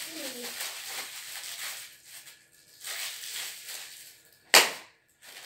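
A balloon bursting with one sharp, loud bang about four and a half seconds in, after a few seconds of rustling.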